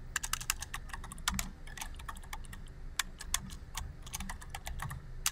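Typing on a computer keyboard: quick, irregular runs of key clicks broken by short pauses.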